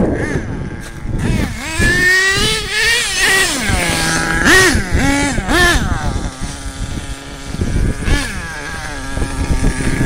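HPI Savage XL radio-controlled monster truck's engine revving in repeated throttle bursts, the pitch rising and falling quickly, then settling into a steadier low running note for the last few seconds, with one short blip partway through.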